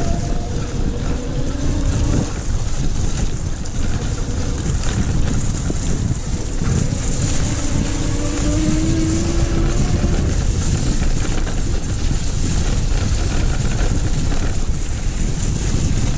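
Wind buffeting the microphone and tyres rolling over a wet, muddy lane on a moving e-bike. A faint whine from the rear hub motor rises in pitch at the start and again from about six to ten seconds in, as the throttle drives the bike faster.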